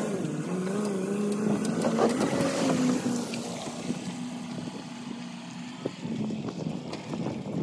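An engine running with a steady hum. Its pitch wavers for the first second or so, rises a little about two seconds in, then holds level.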